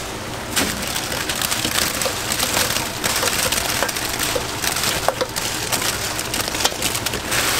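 Crisp fried chicken pieces tumbling from a wire frying basket into a steel bowl and settling against one another: a dense, steady crackling rustle with many small ticks.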